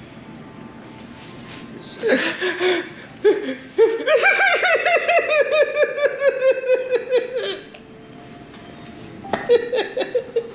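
A man sobbing hard. There are short sobs about two seconds in, then a long, broken wail of quick catching pulses that slowly falls in pitch for three to four seconds, and more sobs near the end.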